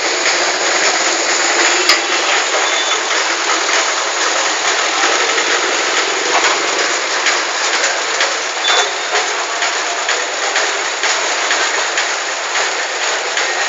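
Loud, steady street din of a busy market road, auto-rickshaw and other vehicle traffic mixed with general bustle, with two brief high beeps about three and nine seconds in.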